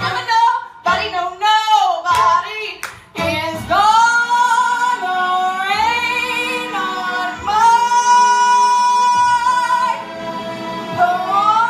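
Female vocalist belting the closing phrases of a show tune with instrumental accompaniment, rising into long, held notes with vibrato.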